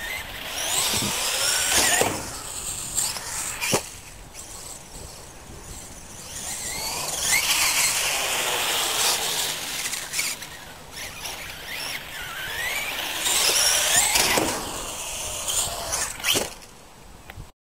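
Brushless electric motor of a Traxxas E-Revo RC truck whining, its pitch sweeping up and down as the truck accelerates and slows on three runs. A few sharp knocks sound as it lands or strikes the concrete; the loudest is about four seconds in, and another comes near the end.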